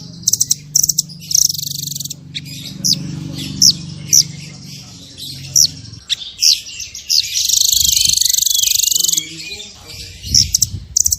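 Small songbirds singing a rapid series of sharp, high, falling whistled notes (the 'shot' notes used as master song), with a dense buzzy trill for about a second and a half near the middle. A low steady hum sits under the first half.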